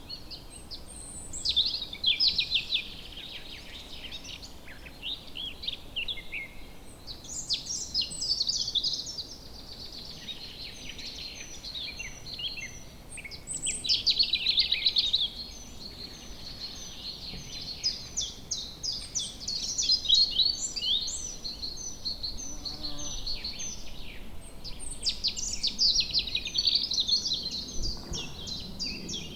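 Several small songbirds singing and chirping together in woodland, overlapping high trills and short chirps with louder bursts every few seconds over faint background noise.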